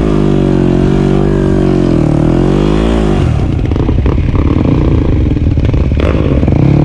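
Four-stroke single-cylinder Yamaha enduro bike engine running at low revs, its pitch dipping and coming back up about two seconds in, then running rougher and more unevenly under throttle from about three seconds in.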